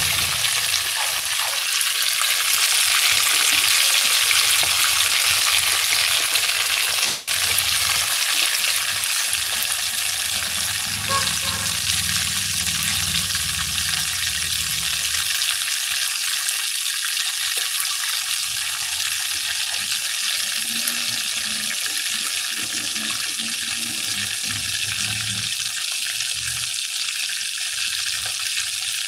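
Bluefish pieces frying in about half an inch of hot oil in a pot, a steady sizzle, with the fish still cooking on its first side before the flip.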